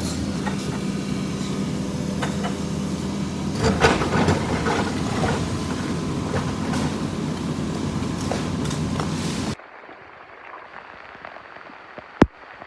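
CAT 320D2 hydraulic excavator's diesel engine running steadily, with a few knocks and clatter about four seconds in. It cuts off abruptly, leaving a much quieter patter and one sharp click near the end.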